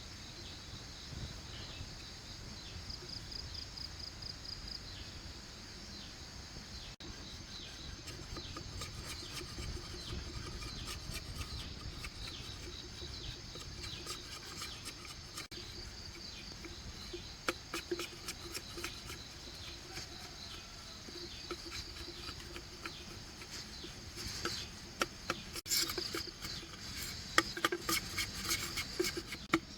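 Insects chirring steadily in the background, with intermittent scratchy scraping and sharp clicks of hand tools working bamboo, becoming busier and louder in the last few seconds.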